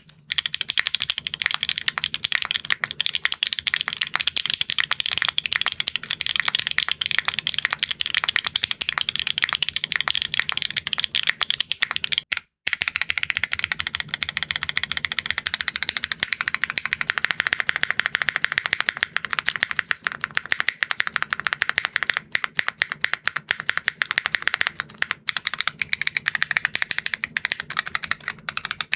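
Mechanical keyboard with stock Huano G Ray linear switches (nylon housings, long-pole POM stem) typed on quickly and continuously, a dense run of mid-pitched clacky keystrokes. About twelve seconds in there is a brief break, after which the typing sound changes in tone.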